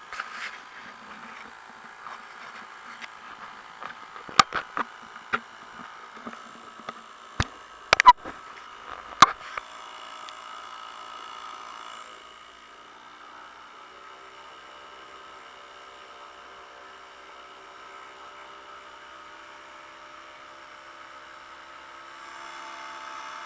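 50-year-old Johnson 2 hp Seahorse two-stroke outboard motor running at a steady speed, driving a canoe across choppy water. Several sharp knocks come a few seconds in.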